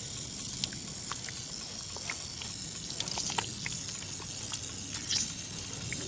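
Air hissing steadily out of an ATV tyre through its torn-out valve stem, with a few faint scattered ticks over the hiss.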